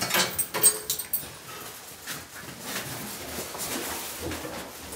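A bunch of keys jingling and clinking as they are hung on a hook, followed by softer rustling and shuffling, with a dog making small sounds.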